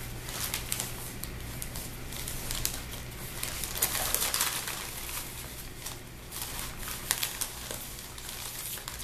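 Paper mailer envelope being opened by hand: paper rustling and tearing in short, irregular rustles, busiest about four seconds in.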